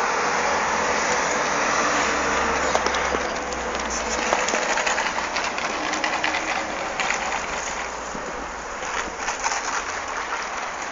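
A steady rushing noise, with irregular soft thuds from about four seconds in as horses gallop on sand.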